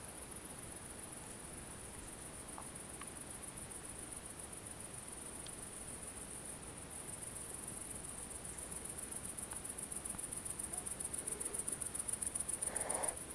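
Faint insect chirring, typical of crickets or bush-crickets: a high, steady buzz with a fast pulse that grows a little louder toward the end.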